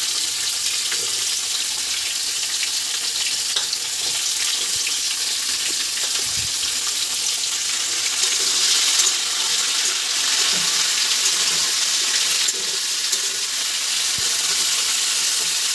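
Chopped vegetables sizzling in hot oil in a kadai, a steady frying hiss.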